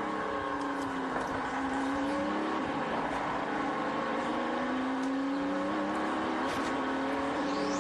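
Audi R10 TDI's twin-turbo V12 diesel running at racing speed, its note gliding slowly down and up again several times as the throttle and gears change. Two short high rising whistles come near the end.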